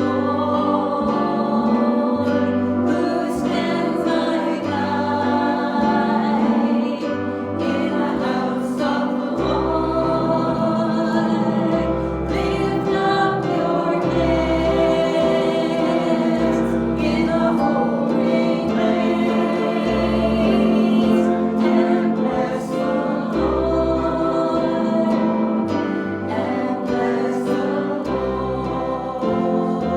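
Gospel worship song: voices singing together over instrumental accompaniment, with a bass line that changes note every second or two.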